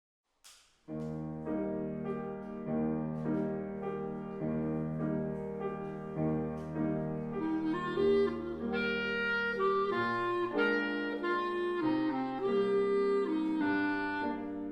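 Two clarinets playing a slow, sustained duet melody, starting about a second in after a short click.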